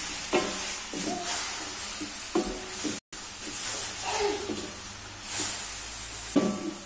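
Baby cabbage sprouts sizzling in an aluminium wok while being stir-fried with a wooden spatula, with a steady frying hiss and short scrapes of the spatula on the pan. The sound cuts out for an instant about three seconds in.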